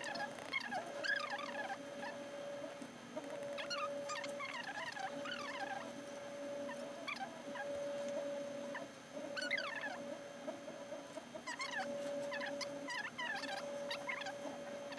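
Clusters of quick, high-pitched squeaky chirps every few seconds, over a steady hum that breaks off briefly now and then.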